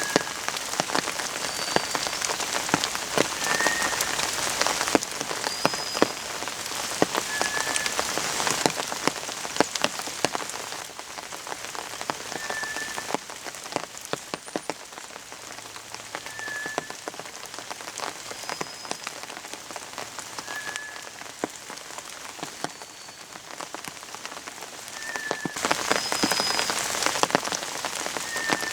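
White's thrush singing its slow, thin whistled song, a lower whistle and a much higher one in turn, about one every two seconds. Steady rain with pattering drops runs underneath, easing in the middle and heavier again near the end.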